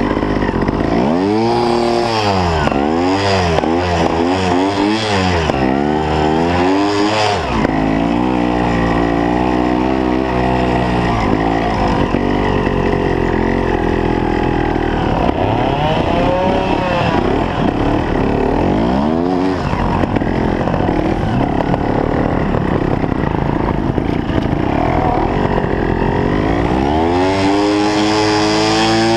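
Trials motorcycle engine heard close up from the handlebars while being ridden. Its pitch rises and falls again and again as the throttle is opened and closed.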